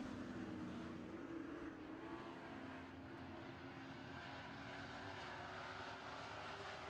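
A pack of dirt-track Super Trucks racing, their engines running together as a steady drone with several overlapping engine notes that ease a little partway through.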